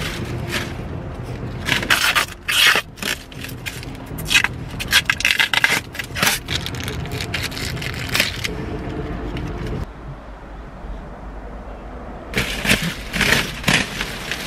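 Protective plastic film being peeled and crumpled off a new car's seats and trim: crinkling and rustling in irregular bursts, with a quieter pause of a few seconds past the middle.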